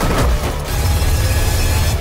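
Action-film shootout mix: a loud music score over heavy gunfire and the crash of debris breaking apart.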